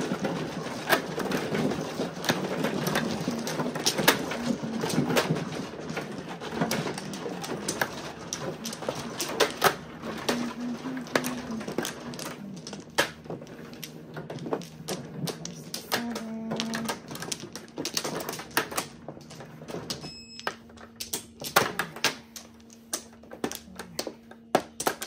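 Mahjong tiles clicking and clacking against each other and the table in many quick, irregular strokes, over a low hum that fades after the first few seconds.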